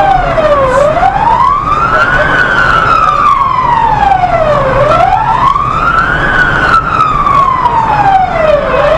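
Emergency response vehicle's siren on a slow wail, rising and falling in pitch about once every four seconds, over low engine and road noise.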